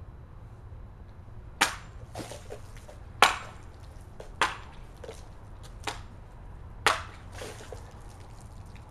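A hand-held blade slicing through a water-filled plastic milk jug: five sharp cuts over about five seconds, the fourth lighter, with smaller knocks between them.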